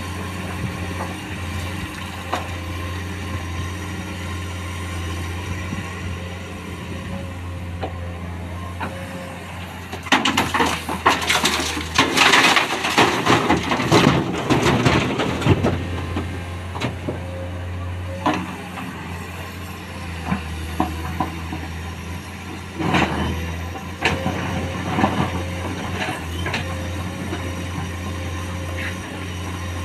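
Diesel engine of a Komatsu PC210 hydraulic excavator running steadily. From about 10 to 16 s comes a loud clattering crash as the bucket tips rock into the steel body of a dump truck, with shorter clatters near 23 and 25 s.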